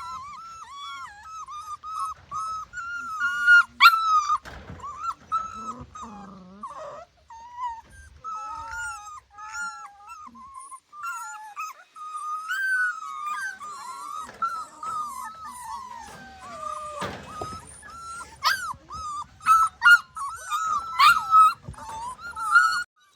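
A litter of puppies whimpering and squealing almost without pause: many short, high-pitched whines following one another, with a few sharper, louder yelps about four seconds in and again near the end.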